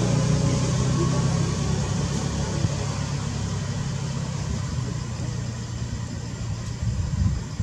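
A low, steady engine hum, like a motor vehicle idling, slowly growing quieter.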